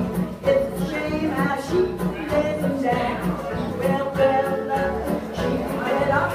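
Live acoustic music: a woman singing into a microphone over a guitar strummed to a steady beat.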